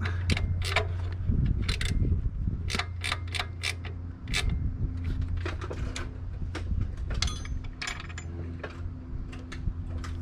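Irregular metallic clicks and clinks of hand tools being worked on an alternator mount, over a steady low hum.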